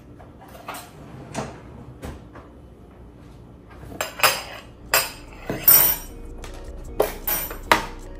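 A plastic food-storage container and its snap-on lid clacking against a kitchen countertop as they are set down and opened. It starts with a few soft knocks, then comes a run of sharp clacks and knocks in the second half.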